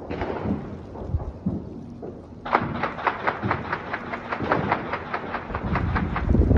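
Distant gunfire: a few scattered bangs, then about two and a half seconds in a rapid, evenly spaced string of shots, about five a second, for some four seconds, ending on a deep boom.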